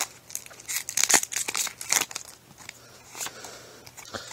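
Foil wrapper of a Pokémon X and Y booster pack crinkling as the cards are slid out of it: a quick run of sharp crackles over the first two seconds, then a few quieter rustles of the cards being handled.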